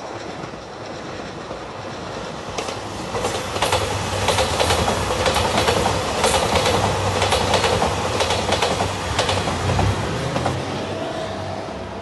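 JR Shikoku 2700 series diesel limited express train passing close by, its wheels clicking rapidly over rail joints under a low engine hum. The sound swells, is loudest through the middle, and fades as the train moves away.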